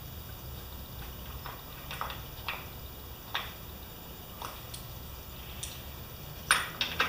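Light, irregular metallic clicks and taps of hand tools being worked on a small mower engine, roughly one a second, with two sharper clicks close together near the end, over a low steady hum.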